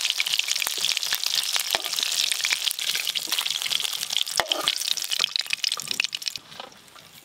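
Rohu fish steaks sizzling in hot mustard oil in a metal wok, with sharp clicks of the metal spatula against the wok as the pieces are lifted out. The sizzling dies away about six seconds in.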